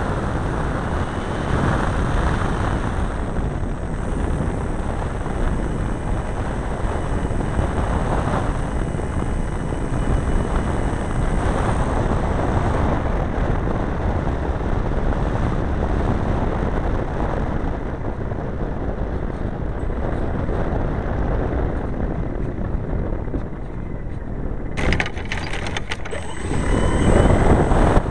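Wind rushing over the onboard microphone of a large RC Quaker model airplane, mixed with its engine and propeller, during a low pass and landing. A short burst of clicks and knocks comes near the end as the plane is on the rough dirt.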